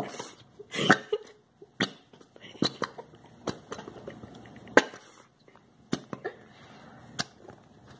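Irregular sharp clicks and taps, roughly one a second, with a short cough-like burst about a second in.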